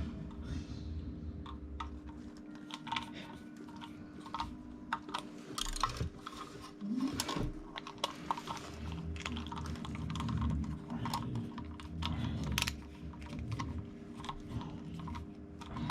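Irregular small clicks and taps of hands working cable and connector parts, over a steady low hum.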